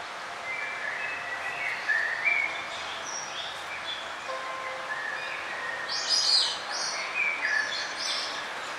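Several songbirds singing short whistled, gliding phrases over a steady rush of flowing forest stream water; the loudest, highest burst of song comes about six seconds in.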